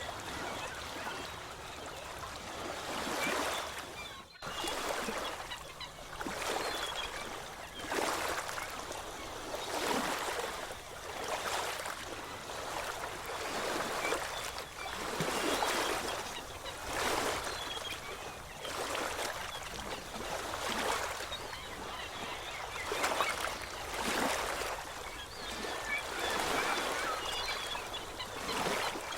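Small ocean waves washing onto a shore, a steady hiss that swells and falls every second or two.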